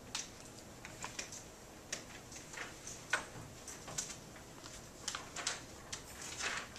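Scattered small clicks and paper rustling in a quiet small room as people write with pens and handle paper. A longer rustle of a sheet of paper being handled comes near the end.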